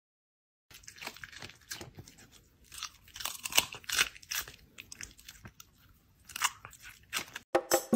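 Red fox chewing and crunching on food held in a person's hand: irregular crisp bites with short pauses between them.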